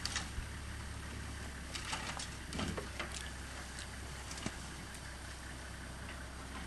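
Low, steady hum of an idling vehicle engine, with scattered faint clicks and rustles.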